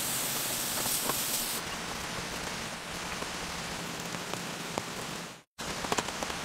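Meat sizzling on a gas grill plate, a steady crackling hiss that turns duller after about a second and a half. The sound drops out for an instant near the end, followed by a few sharp clicks.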